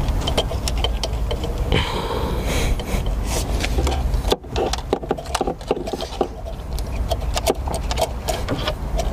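Scattered clicks, taps and light rattles of hand tools and engine parts being handled, over a steady low rumble. The sound drops out briefly about four seconds in.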